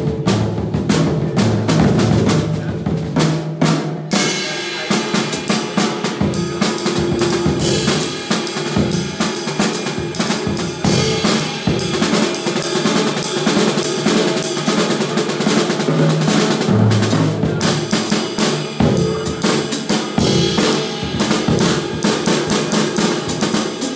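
Jazz drum kit played with sticks in a solo passage: rapid snare and tom strokes with bass drum, and cymbals ringing in from about four seconds in.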